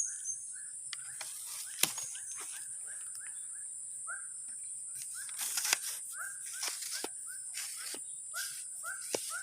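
Waterside wildlife: a steady high-pitched insect drone, with a short animal call repeating about twice a second and a few sharp clicks, the loudest about two seconds in.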